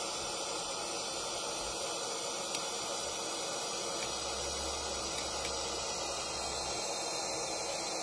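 Sleepbox SWNH2 portable white noise machine playing steady white noise through its small speaker, with a faint click about two and a half seconds in.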